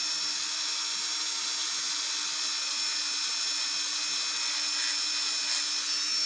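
Dremel rotary tool running steadily at its lowest speed, a high-pitched whine, its bit lightly grinding down raised gasket material on an aluminium chainsaw crankcase mating surface.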